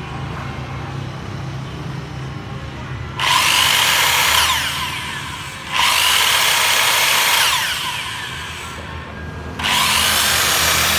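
Makita 5732C circular saw (100 V, 1140 W) run free with no cut. After a low hum, the motor starts up with a loud whine about three seconds in, runs for about a second, then coasts down with falling pitch. It is switched on and coasts down a second time, then starts a third time near the end.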